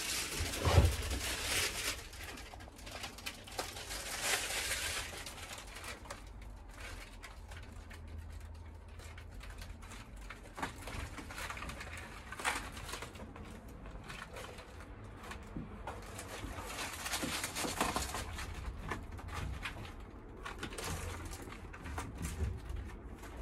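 Foil-faced closed-cell foam insulation liner rustling and crinkling as it is pressed and smoothed by hand onto a van's metal side panel, with a sharp thump about a second in. A pigeon coos in the background.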